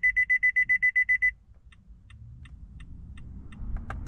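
A rapid string of high electronic beeps, about ten a second for just over a second, sounding as the Nissan smart-key registration finishes and the dashboard comes on. Faint steady ticking follows.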